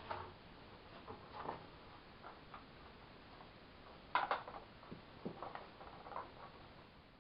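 Light clicks and rustling of a strap being worked around a sheathed katana's hilt and scabbard, with a louder clatter about four seconds in as the scabbarded sword shifts at the belt.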